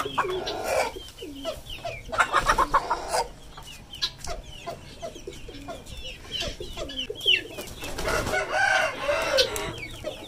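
Chickens clucking, mixed with many short high chick peeps. A denser run of calls comes a couple of seconds in, and there is a stretch of rustling noise near the end.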